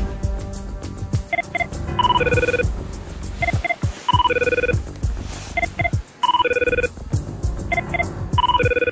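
Sony Ericsson mobile phone ringtone: a short electronic tune of quick beeps and a few notes, repeating four times about every two seconds from about a second in, over background music.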